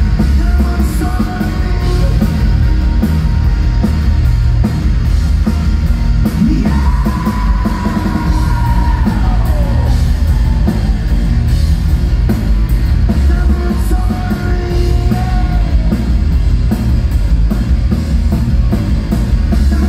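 Rock band playing loud and live: distorted electric guitar, bass guitar and drums, with singing and yelling. A long held note slides down in pitch about seven seconds in.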